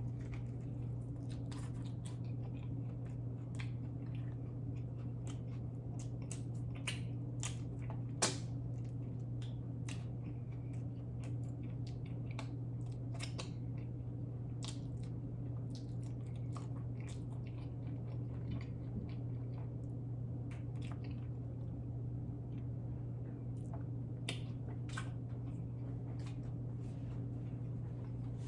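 Close-miked chewing of a cheeseburger, with many small wet mouth clicks and smacks and one sharper click about eight seconds in, over a steady low hum.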